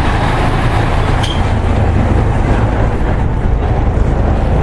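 Steady, loud low rumble with a brief high tick about a second in.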